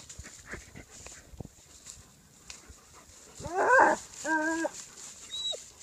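A dog gives two short whining yowls about three and a half seconds in, the second held on one steady pitch, and a faint high whimper near the end. Before that there are only faint scuffles.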